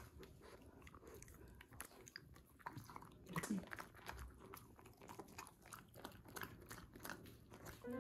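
A Jindo-mix dog chewing a small dental chew stick: faint, irregular crunching and gnawing clicks. A brief falling low sound comes about three and a half seconds in.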